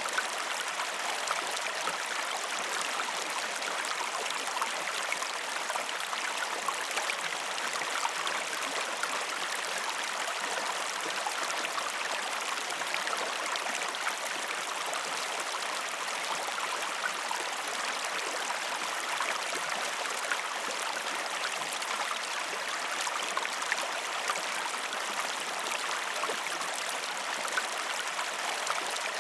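Waterfall: a steady rush of falling water with many small splashes through it, bright and hissy, with almost no low rumble.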